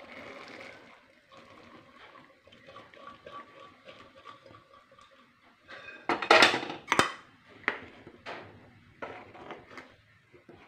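Cooked chickpeas tipped from a metal pot into a pan of curry, then a few loud metal clanks of pot and spoon about six seconds in, and a spoon stirring and scraping in the pan near the end.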